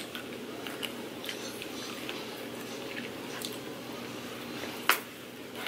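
People chewing jelly beans: scattered small mouth clicks and smacks of chewing, with one sharper click about five seconds in.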